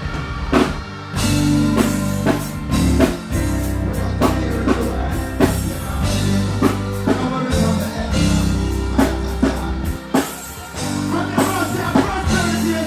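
Live reggae band playing: a heavy bass line under regular drum hits, with some singing toward the end.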